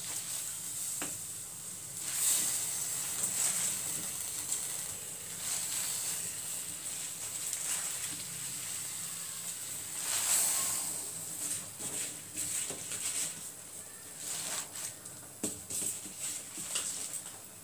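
Hot water hissing with faint crackles in a kadhai of fresh spinach leaves, heating toward the boil. The hiss swells twice, about two and ten seconds in.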